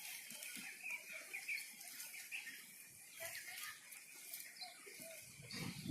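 Small birds chirping in short, quick notes, with scattered faint clicks and a low rumbling sound near the end.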